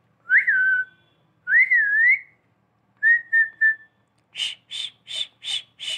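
Pet rose-ringed parakeet whistling human-style: a falling whistle, a rising wavering whistle and three short level notes. Then comes a run of short noisy calls, about two or three a second.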